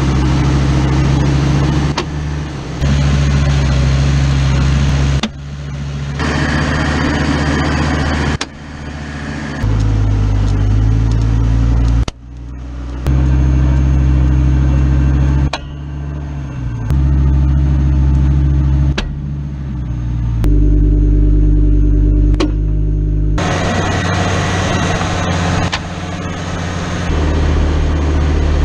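Hummer H3 drivetrain heard from underneath while driving: a loud, steady low hum from the engine, 4L60E transmission and transfer case that changes pitch and level abruptly every few seconds. It carries a noise the owner traces to the 4L60E or the transfer case.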